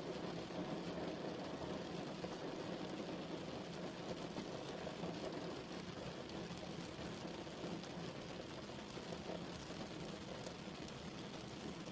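Steady rainfall: an even, unbroken patter of rain on a surface.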